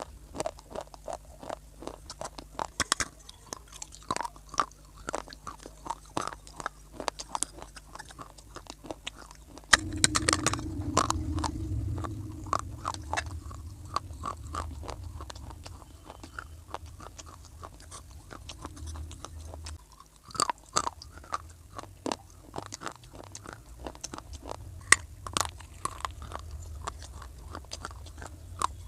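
A person biting and chewing pieces of dry clay (mitti) close to the microphone, with rapid sharp crunches throughout. A loud bite about ten seconds in starts a low muffled rumble under the crunching that lasts about ten seconds, then fades but continues.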